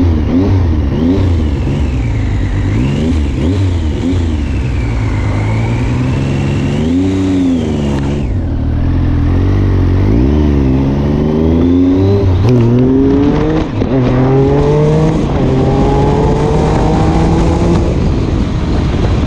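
Triumph motorcycle engine heard on board: the revs rise and fall with the throttle at low speed, dip briefly about eight seconds in, then climb several times in a row as the bike accelerates up through the gears.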